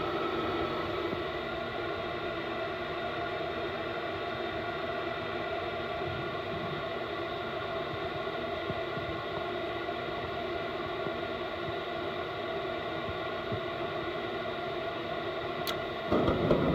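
Trane SV92 furnace starting up after its soot-clogged burners were cleaned: a steady motor hum with several fixed tones. About a second before the end, a louder, lower rush cuts in abruptly.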